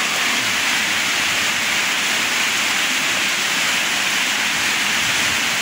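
Heavy rain, a steady even rush of noise.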